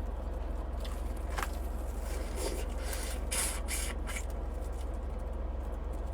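Cooked crayfish being peeled by hand: a few short crackles and rustles as the shells are cracked and pulled apart, over a steady low hum.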